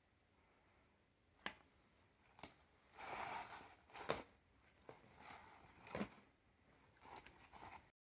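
Faint rustling and a few soft clicks and taps as an embroidered garment and its paper price tag are handled. The rustle is loudest about three seconds in, with a sharper tap about a second later, where the fabric brushes close to the microphone.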